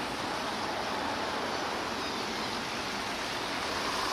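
Steady roadside traffic noise: an even hiss and rumble of vehicles on a busy road.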